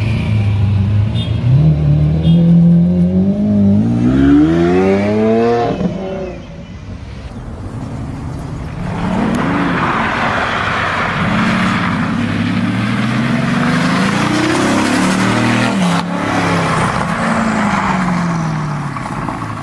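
Sports car engines revving hard: a deep engine note climbs steeply in pitch for a few seconds, then, after a drop, an engine revs up and down over a loud hiss of tyres spinning on loose ground while drifting.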